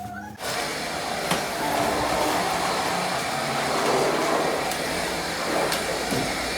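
Household vacuum cleaner switched on about half a second in, its motor spinning up and then running steadily, with a few faint clicks.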